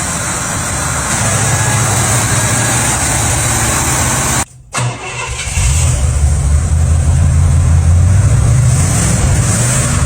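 A 500-cubic-inch big-block V8 running just after being started. About four and a half seconds in the sound drops out for a moment, then comes back as a heavier low rumble.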